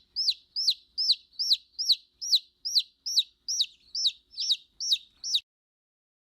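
Domestic chick peeping: a steady run of about a dozen high, downward-sliding peeps, a little over two a second, ending about five seconds in.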